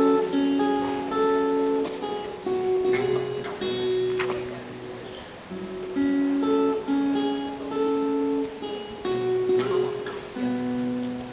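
Acoustic guitar playing a slow introduction of picked chords, each held about a second, with the same phrase coming round again about halfway through.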